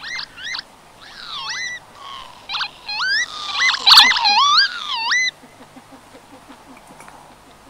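An animal's high, quick calls, many in a row, each gliding up or down in pitch, stopping about five seconds in. A sharp click sounds among them about four seconds in.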